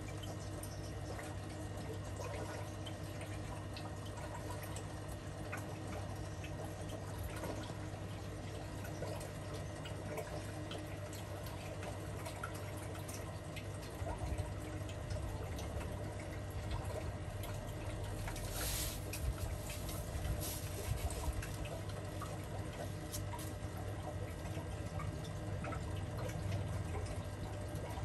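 Aquarium water bubbling and trickling steadily from the tank's filter and air line, over a low hum, with scattered small drips. A brief louder rush comes about two-thirds of the way through.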